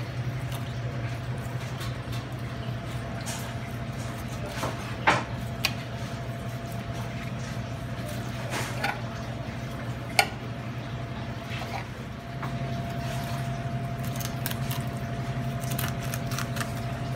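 A knife slicing and scraping a whole fish off its bones on a plastic cutting board, with wet squishing and a few sharp clicks. A steady low hum runs underneath.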